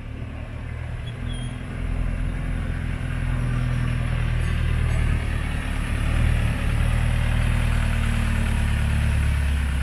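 Engine of a rubber-tyred resort road train (a tourist shuttle train) running as it drives up and draws close, growing louder over the first few seconds, then a steady low hum close by.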